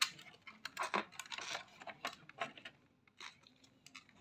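Hard plastic clicks, knocks and a brief scrape from a robot vacuum's drive-wheel module being handled and fitted into its plastic chassis; the clicks cluster in the first three seconds, then it goes quieter.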